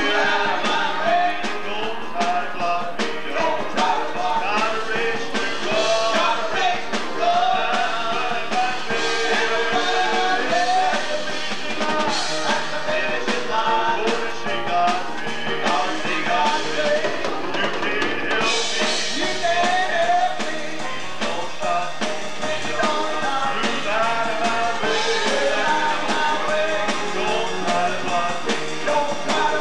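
Live gospel song: a man sings lead, with a woman's voice alongside, over instrumental accompaniment.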